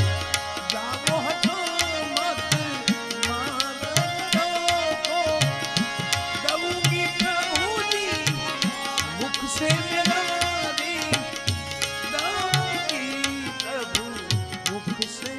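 Instrumental passage of live Gujarati devotional santvani music: tabla playing a dense, steady stream of strokes with deep bass thuds under a melody line of bending notes, with no singing.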